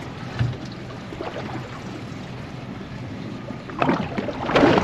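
Wind and water lapping around a small boat at sea, a steady rushing background with a faint low hum. A louder rush of noise comes about four seconds in.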